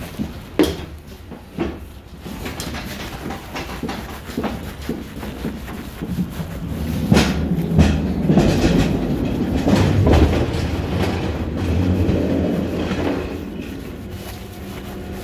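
Loading-dock clatter: a few sharp metal knocks, then a rattling rumble of wheels rolling over a steel dock plate and the truck's floor, building about six seconds in and easing off near the end.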